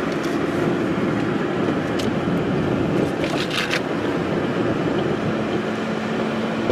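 Steady road and engine noise heard from inside a moving vehicle, with a low engine hum. About three seconds in there is a brief run of sharp clicks or rattles.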